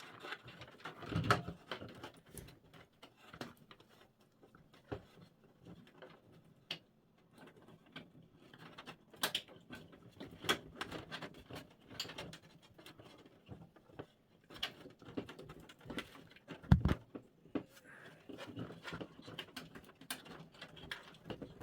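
Scattered clicks, taps and rustles of a power cable being handled and routed through a PC case, with one louder knock about 17 seconds in.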